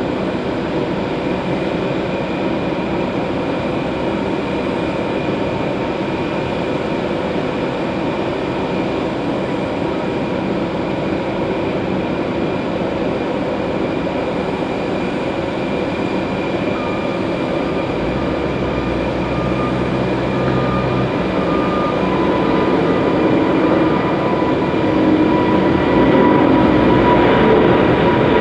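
Airbus A350-900's Rolls-Royce Trent XWB turbofans at takeoff thrust: a steady jet noise with a few whining fan tones in it, growing louder toward the end as the airliner climbs closer overhead.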